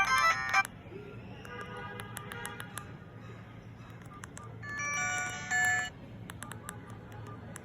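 Ringtone melodies played through a Realme Dizo Star 400 feature phone's speaker. A loud tune cuts off less than a second in. A fainter tune follows briefly, then a louder short run of tones about five seconds in.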